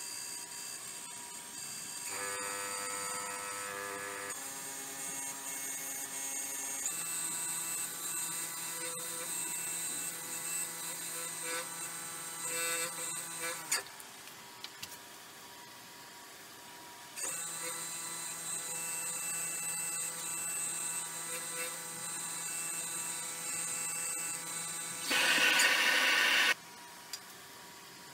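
Variable-speed lathe motor running with a steady whine while a bowl is polished with a paper towel. The whine changes pitch a few times as the speed is changed, cuts out for a few seconds about halfway through, then starts again. Near the end comes a loud rushing hiss lasting about a second and a half, and the motor stops again.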